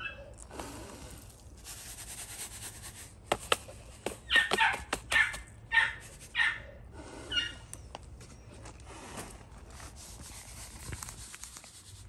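Breath blown steadily across amaranth seed in a pan to winnow out the chaff, heard as long airy puffs, with a few small clicks of seed. Near the middle comes a run of about five short, high-pitched animal cries, the loudest sounds here.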